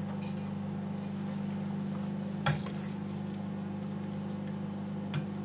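Microwave oven running with a steady low hum, while a ladle clacks once against a plastic pressure cooker pot about two and a half seconds in and taps lightly near the end.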